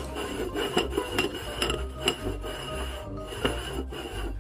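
Upturned porcelain bowls scraping and knocking on a wooden tabletop as they are slid and shuffled around, over background music with a steady bass.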